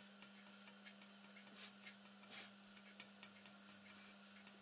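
Near silence: faint room tone with a steady low hum and scattered faint ticks.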